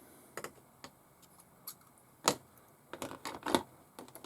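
Small parts of a model steam engine kit being handled: a scattered series of light clicks and taps, with sharper knocks a little over two seconds in and about three and a half seconds in.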